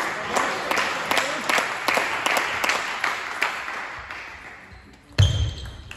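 Spectators clapping after a point, the applause dying away over about four seconds. Near the end, a thump and the short high pings of a table tennis ball being played.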